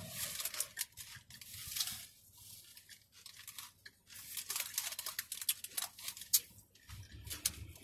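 A paper fast-food wrapper crinkling and crackling as it is handled, with chewing. It is busy for the first couple of seconds, goes quieter, then crackles again from about four seconds in.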